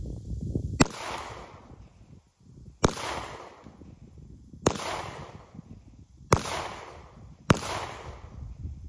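Five handgun shots fired at uneven intervals, each a sharp crack followed by a short echo that dies away over about a second.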